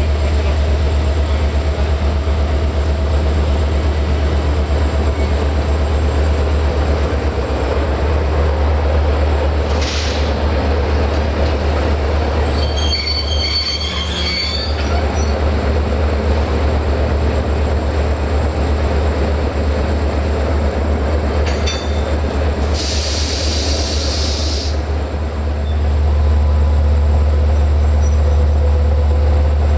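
LDH1250 diesel-hydraulic shunting locomotive and passenger coaches rolling slowly past, with the engine's steady low rumble. The wheels squeal in high tones about halfway through, and a loud hiss follows for about two seconds some 23 seconds in.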